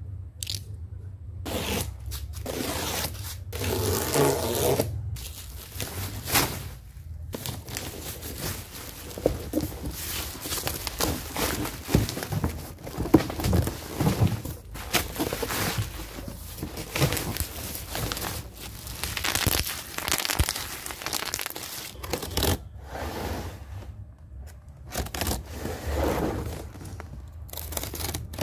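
Black plastic wrap being pulled and torn off a cardboard box, rustling and crinkling in irregular bursts. Later a utility knife cuts along the box's seams, scraping through cardboard and tape.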